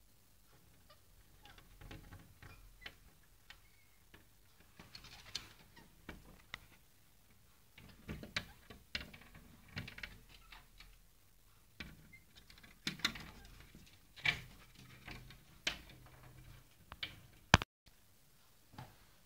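Pet parrots knocking and tapping with their beaks: irregular clicks and knocks, the sharpest one near the end.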